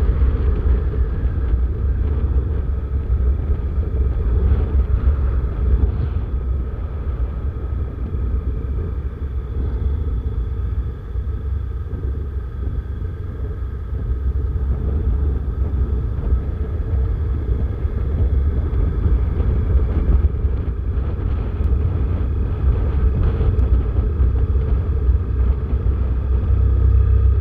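Wind buffeting the helmet-mounted camera's microphone on a moving Honda motorcycle, a steady fluttering rumble, with the bike's engine and road noise beneath it.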